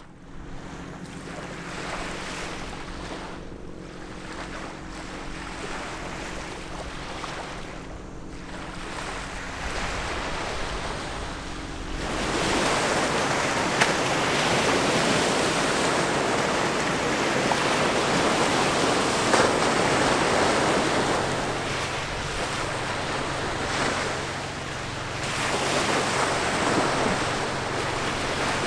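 Passing oil/chemical tanker and pilot boat: a steady low engine hum with several tones under washing water and wind on the microphone. About twelve seconds in the water and wind rush gets louder and fuller, and a lower drone comes back later.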